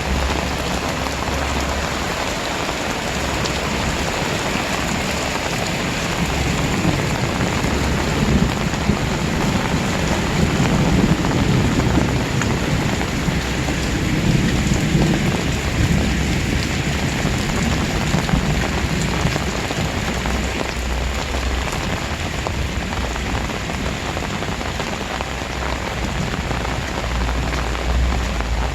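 Very heavy rain pouring down steadily, with a low rumble that swells and fades in the middle.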